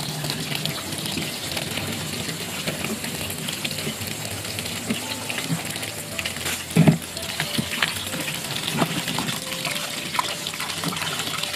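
Tap water splashes steadily onto macaroni in a plastic colander, rinsing the pasta. A short dull knock comes about seven seconds in, and near the end hands stir through the wet macaroni under the stream.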